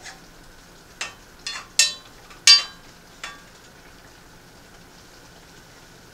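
A metal spoon clinking and scraping against a frying pan while stirring food, about six strikes in the first three and a half seconds, the loudest near the middle. A faint steady hiss runs underneath.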